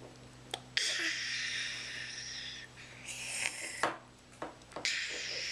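A young child making breathy, hissing blowing noises: three long hisses, the first about two seconds long, with a few small clicks between them.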